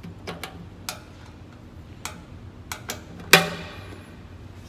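Lid of a solder paste mixer being handled with a few light clicks, then shut with one loud clunk that rings briefly, about three and a half seconds in.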